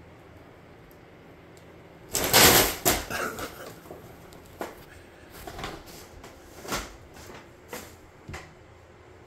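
Large brown paper grocery bag crumpling loudly for about a second as it is crushed under a cat, about two seconds in, followed by scattered lighter crinkles and rustles of the paper as the cats move on and around it.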